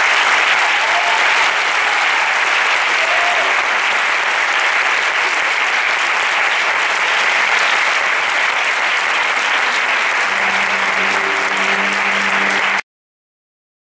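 Concert audience applauding steadily after a wind band performance, the clapping cutting off suddenly near the end.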